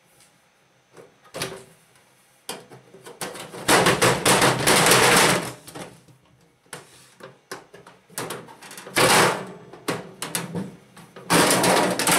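Sheet-metal outer cover of a Sharp microwave oven being forced off by hand and with blows: a knock about a second in, then a couple of seconds of loud metallic rattling and banging, with more bangs later as the cover comes free.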